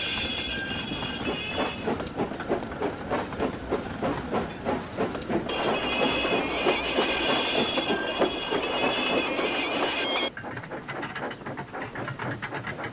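Steam train running, with rapid rhythmic chuffing and wheel clatter and a high steady tone sounding over it twice. The mix drops and changes abruptly about ten seconds in.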